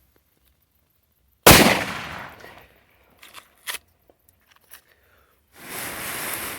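A firecracker going off with one loud bang about a second and a half in that dies away over about a second, followed by a few small sharp cracks and a short burst of hissing near the end.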